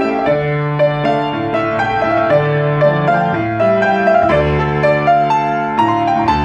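Grand piano played solo: a melody of changing notes over held bass notes and chords.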